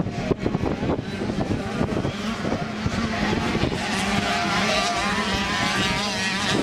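65 cc two-stroke youth motocross bikes racing, their engines revving up and down, with wind buffeting the microphone, strongest in the first second or two.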